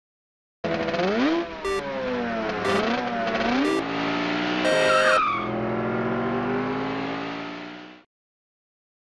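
Race car sound effect: an engine revving, its pitch swinging up and down several times, with a few short squeals. It then settles into a steadier note that fades away near the end.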